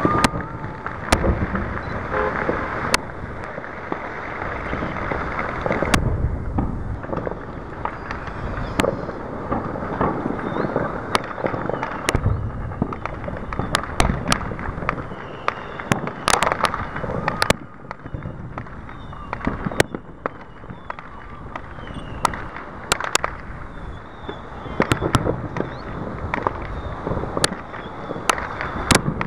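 Fireworks going off: many sharp bangs and crackles at irregular intervals, over steady background noise.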